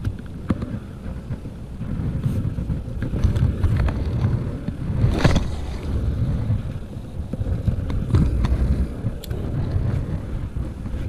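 Handling noise from casting a spinning rod: a low, uneven rumble, with one brief swish about halfway through as the rod is cast and a couple of light clicks from the reel near the end.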